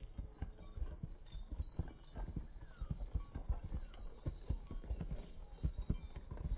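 Hoofbeats of several horses galloping together on grass turf: a quick, uneven drumming of dull thuds.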